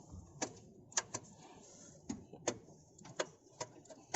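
Irregular sharp clicks and light taps, about eight over four seconds at uneven intervals, with no engine running.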